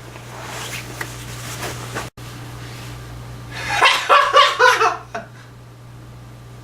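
A short burst of laughter about four seconds in, right after the punchline of a joke, over a steady low hum.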